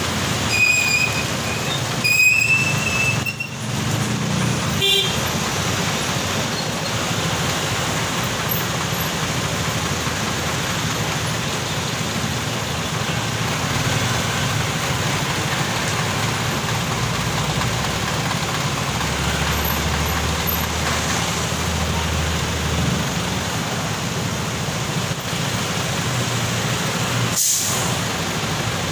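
Street traffic: a steady mix of car, jeepney, motorcycle and truck engines, with a few short horn toots in the first five seconds.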